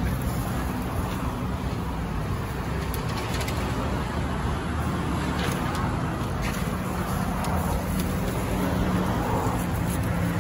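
Steady road traffic noise with a low, even hum, and a few faint clicks.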